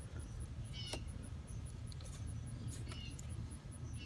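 Faint outdoor background: a steady low rumble with a few short, high chirps, about one a second or so, from small animals.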